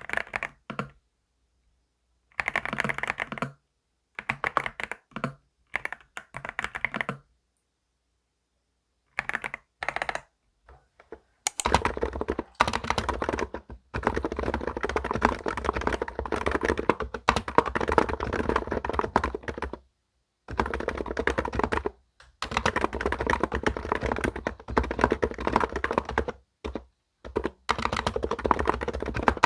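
Typing on a computer keyboard. Short bursts of keystrokes with pauses come first, then fast, nearly continuous typing starts a little over a third of the way in.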